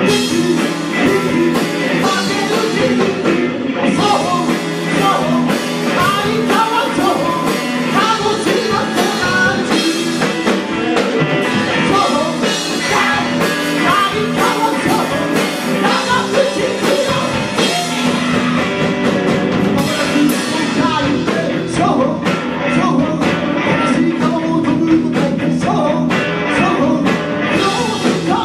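Live progressive rock from an electric guitar and a Pearl drum kit, playing continuously with a steady drum beat.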